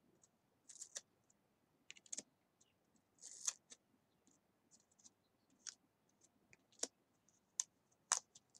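Brand-new oracle cards being peeled apart and laid on a pile one at a time: scattered soft clicks and snaps of card edges, with one brief slide of card on card about three and a half seconds in. The new cards' coating makes them stick together, so each has to be worked free.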